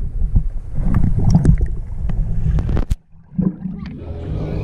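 Underwater water noise around a submerged action camera: a muffled low rumble with scattered bubble pops and clicks. About three seconds in the camera breaks the surface and the sound opens up into open-air water noise.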